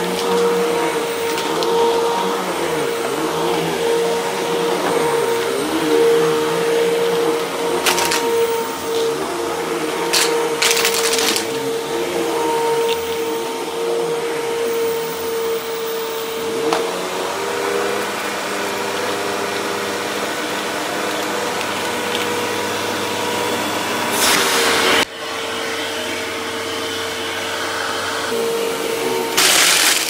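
Upright vacuum cleaner running steadily on a rug, its motor humming at one pitch that shifts slightly partway through. A few brief louder bursts of noise come as debris on the rug is sucked up.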